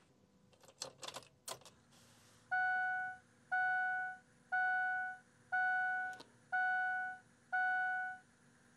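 A few clicks as the ignition key is turned back on in a 2006 Ford Power Stroke truck, then the dash warning chime sounds six times, about once a second, each a clear tone that fades off.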